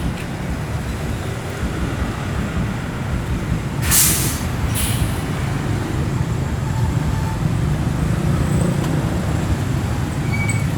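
Heavy diesel vehicle's engine idling with a steady low rumble. A sharp hiss of air from the air brakes comes about four seconds in, followed by a shorter hiss just after.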